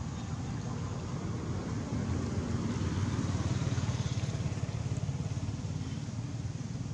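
A motor vehicle's engine running steadily, a continuous low rumble with a fast, even flutter.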